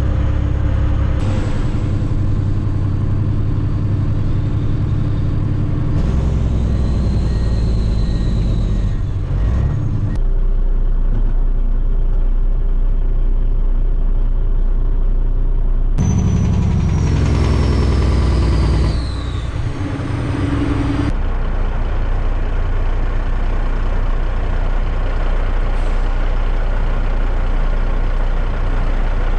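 Heavy diesel truck engine running, with the sound jumping abruptly several times as if between separate stretches of driving. A high tone slides downward a little past the middle.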